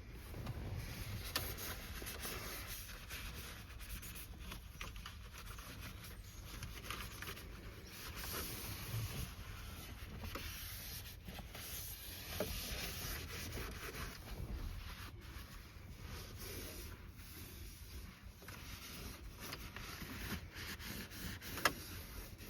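Wiping and dusting a truck's interior around its electronics: faint, steady rubbing with small scattered clicks and knocks.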